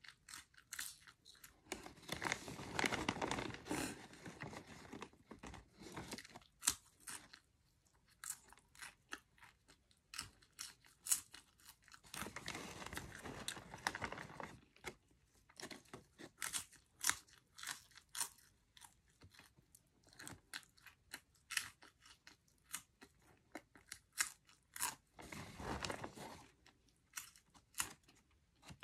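A person chewing cheddar cheese popcorn: a run of sharp crunches, with three denser stretches of crunching spread through it.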